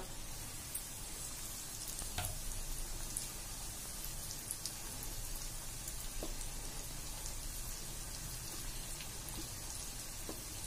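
Flour-coated marinated chicken legs deep-frying in hot oil: a steady bubbling sizzle with scattered small crackles and pops.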